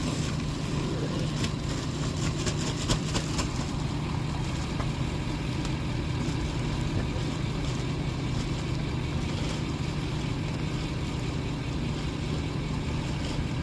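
A vehicle engine idling steadily, with a few short scrapes or knocks during the first three seconds or so.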